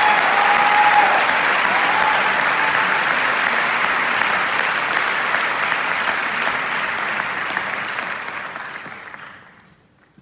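Large concert audience applauding, with a few cheers in the first few seconds; the applause dies away near the end.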